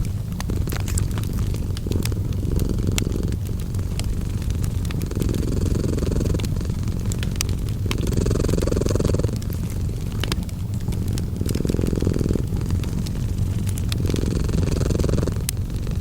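A cat purring, a steady low rumble that swells about every three seconds with its breathing. Scattered sharp pops and crackles of a wood fire sound over it.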